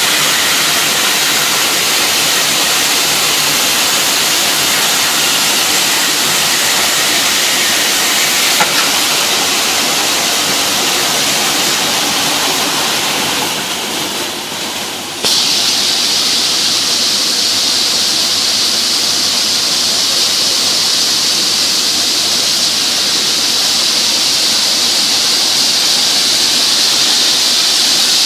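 Calibrating sanding machine running and sanding wood: a loud, steady hiss. About halfway through, it dips briefly, then cuts over abruptly to a brighter, higher-pitched hiss.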